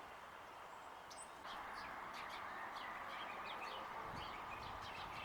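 Small songbirds chirping faintly, in many short, scattered chirps, over a steady background hiss that grows louder about a second and a half in.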